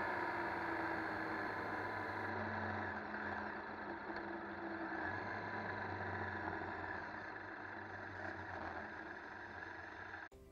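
KTM 1190 Adventure's V-twin engine running steadily at low speed, with wind and road noise over it, slowly getting quieter. The sound cuts off suddenly near the end.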